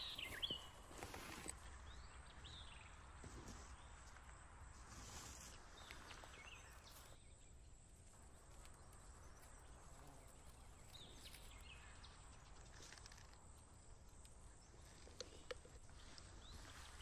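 Near silence in a forest: faint rustling among low berry shrubs, with a few faint short high chirps a few seconds apart.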